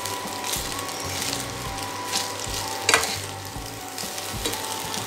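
Metal spoon stirring and turning cooked rice in a stainless steel pan on low heat, scraping and clinking against the pan, with the loudest clink about three seconds in.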